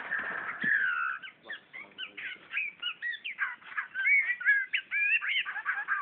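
Murai songbird singing: a warbling phrase in the first second, then a quick run of short, varied whistled notes and chirps.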